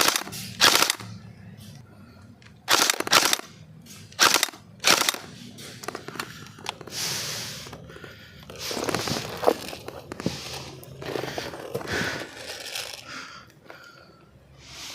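Airsoft rifles firing several short bursts in the first five seconds, followed by quieter, rougher noises.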